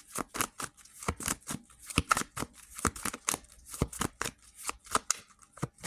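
Tarot cards being shuffled by hand: a quick, uneven run of crisp card flicks and taps, about four or five a second.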